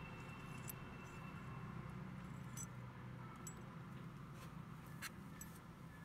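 A few scattered light metallic clicks from a stainless steel sliding barn-door latch being handled and turned, the sharpest about five seconds in, over a steady low hum.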